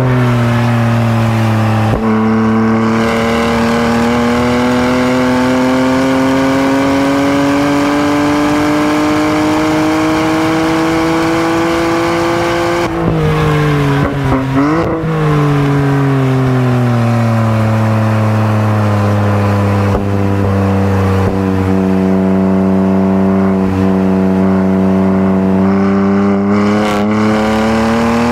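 BMW M3's twin-turbo inline-six running hard on a track lap: the engine note climbs slowly for about ten seconds, dips sharply and recovers about halfway through, then sinks gradually and climbs again near the end.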